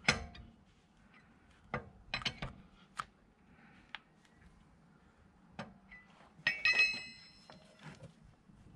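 Scattered metallic clicks and knocks of hand tools being handled, with a ringing clatter of metal on metal about six and a half seconds in.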